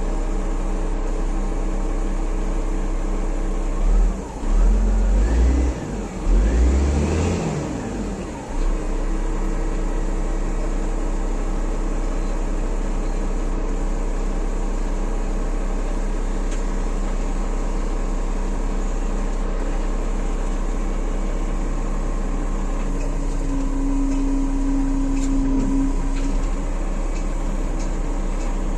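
A heavy machine's engine running steadily. About four seconds in it revs up and down for a few seconds with a deep rumble, then settles back to a steady run.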